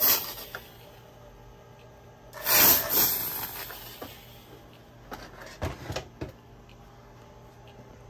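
Fog machine blowing fog: a short hiss at the start, then a louder hiss about two seconds in that fades away over a second or so. A few light knocks follow.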